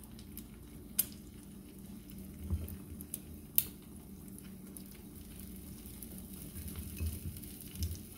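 Egg-and-spinach omelette sizzling faintly in a frying pan on a gas stove, under a steady low hum. A couple of sharp clicks come about a second in and again a few seconds later.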